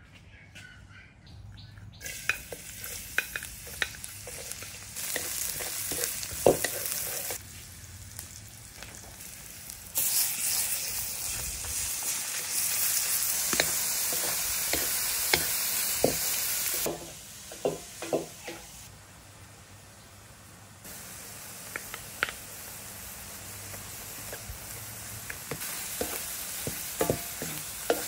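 Food sizzling in a hot pan while being stirred, with scattered clicks and scrapes of a utensil against the pan. The sizzle jumps louder and quieter in abrupt steps.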